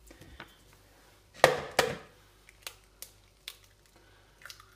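An egg knocked twice against the rim of a mixing bowl, sharp knocks about a second and a half in, then a few small clicks of the shell being broken open over the bowl.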